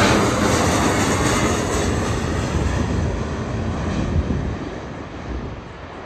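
Twin-engine jet airliner passing low overhead, its engine noise loudest at the start and fading steadily as it moves away.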